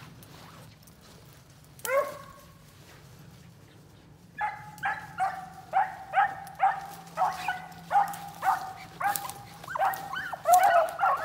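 Beagles baying while running a rabbit's track. One call comes about two seconds in. Then comes a steady string of baying, about two a second, that grows louder, and near the end the voices overlap, more than one hound giving tongue.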